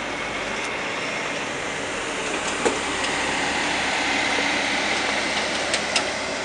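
Amphibious tour bus's gasoline engine running as it rolls slowly over a wooden-planked railway crossing, getting a little louder as it passes. Sharp clunks come about two and a half seconds in and twice near the end as its wheels cross the rails.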